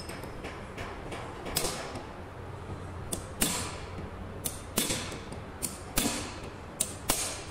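A hammer knocking on steel parts of a tractor's dual clutch pressure plate assembly while its release fingers are being set: about eight sharp, unevenly spaced metallic knocks, each ringing briefly.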